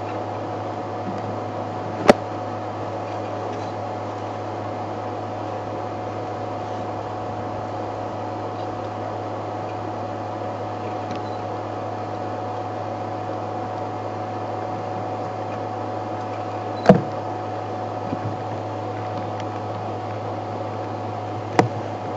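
Steady mechanical hum with a fainter higher tone, broken by three sharp cracks or knocks: about two seconds in, about seventeen seconds in, and near the end.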